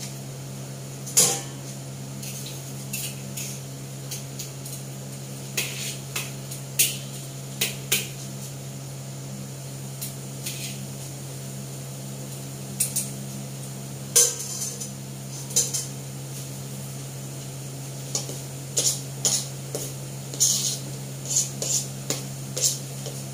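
A spatula knocking and scraping against a steel wok while a potato omelette fries, in irregular clusters of sharp clinks. A steady low hum runs underneath.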